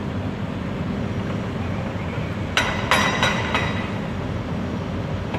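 Demolition excavators running with a steady diesel rumble. About halfway through comes a quick run of four or five sharp metallic clanks, typical of the machines' steel attachments striking concrete and rebar.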